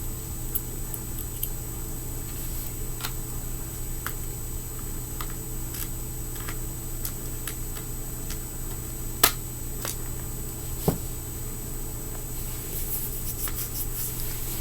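Scattered small clicks and taps of fingerboard parts, wheels, spacers and nuts, being fitted with a skate tool, with two sharper clicks about nine and eleven seconds in, over a steady low hum.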